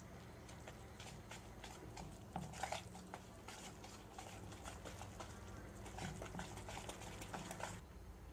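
Wire whisk stirring a thick oats and rava batter in a plastic bowl: faint, irregular clicks and scrapes of the wires against the bowl, stopping near the end.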